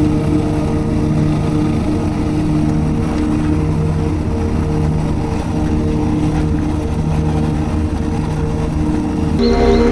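Suzuki DR650's single-cylinder four-stroke engine running steadily while riding along. Background music cuts in just before the end.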